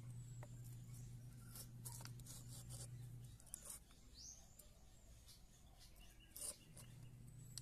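Near silence: a faint steady low hum that stops about three seconds in and comes back near the end, with a few light clicks and taps and one brief high chirp.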